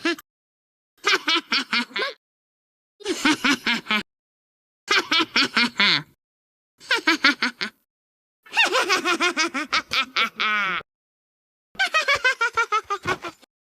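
A high-pitched cartoon girl's laugh, played as six separate clips about a second or two long, each a quick run of 'heh-heh' pulses, with dead silence between them.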